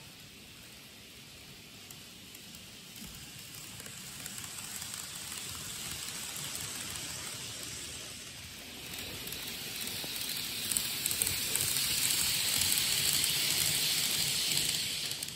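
N-gauge model train running along the layout's track, a hiss of wheels on the rails and the motor with a light crackle, growing louder as it comes closer and dropping away suddenly at the end.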